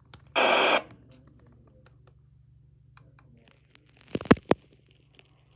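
A half-second burst of radio static from a weather-radio receiver, starting and stopping abruptly, over a low steady hum. About four seconds in come three sharp clicks or knocks.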